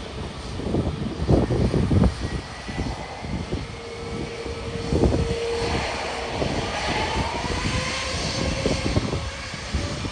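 Twin-engine jet airliners taxiing at idle thrust, their engines whining with a steady tone. Pitch rises slowly from about halfway through, over an uneven low rumble.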